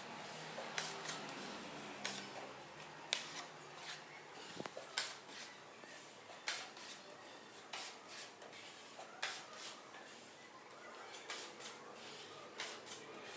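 A small hand tool scraping and rubbing against a textured plaster wall in short, irregular strokes with occasional clicks.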